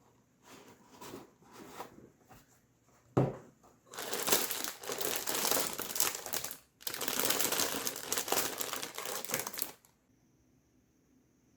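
Crinkling and crumpling of handled material: a few soft crackles, a single knock about three seconds in, then two long stretches of dense crinkling that stop suddenly about two seconds before the end.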